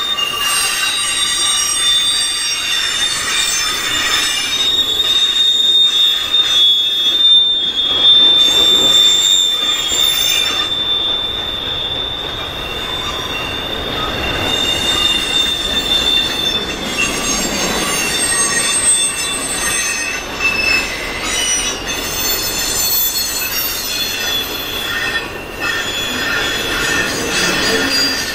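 Intermodal freight train of trailers on flatcars rolling past, its steel wheels squealing against the rails with a rumble of the cars beneath. A strong high squeal holds steady for the first half and then breaks into weaker, shifting tones.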